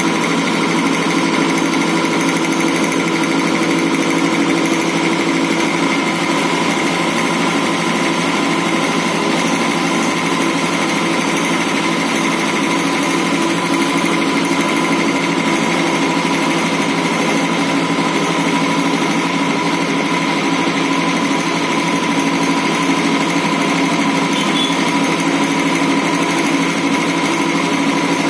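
Two-cylinder V-type reciprocating air compressor pump, belt-driven by a 2 HP single-phase electric motor on a 200-litre tank, running steadily and pumping air.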